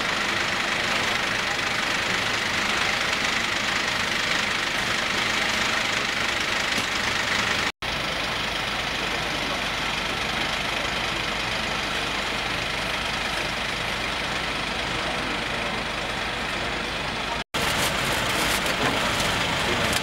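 Ambulance engine idling with a steady hiss and rumble, broken twice by split-second dropouts where the recording is cut.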